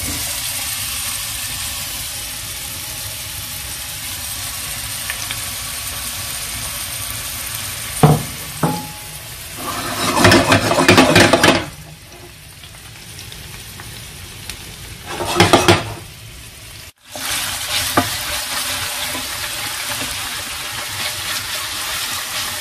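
Hot oil sizzling steadily in a frying pan, with louder surges of sizzling and stirring about eight, ten to eleven and fifteen seconds in.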